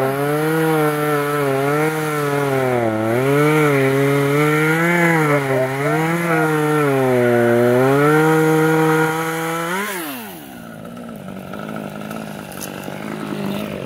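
Chainsaw cutting into a tree trunk, its engine pitch dipping and recovering repeatedly under load. About ten seconds in the throttle is let off, the pitch falls quickly, and the saw settles into a quieter steady idle.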